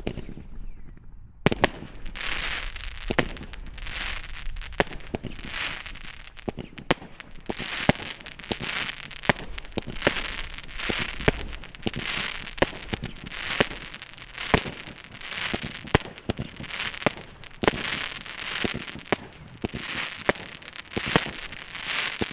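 Consumer fireworks cake firing its shots one after another, starting about a second and a half in: each shot a sharp bang followed by a spell of crackling from crackling stars, about one a second.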